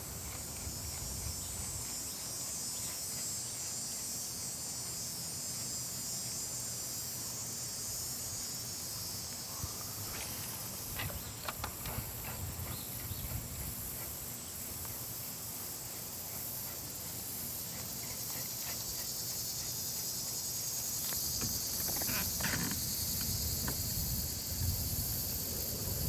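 Steady high-pitched chorus of insects, such as crickets or cicadas, with a low rumble underneath and a few short clicks partway through and near the end.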